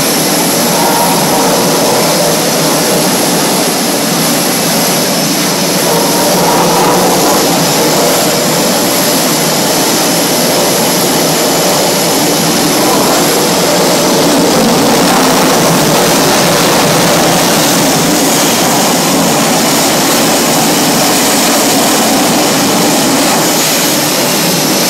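Jet engines of F/A-18 Hornet fighters running on an aircraft carrier's flight deck: a loud, steady rushing noise with no breaks.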